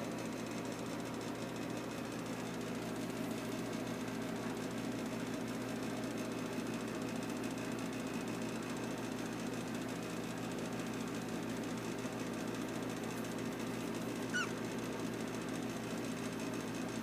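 Steady low mechanical hum throughout. About fourteen seconds in, a newborn Yorkshire terrier puppy gives one brief high squeak.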